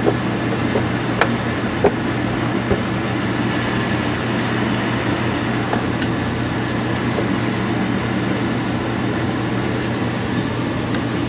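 A steady mechanical hum and drone of garage background noise, with a few light clicks in the first few seconds as plastic parts are handled and fitted.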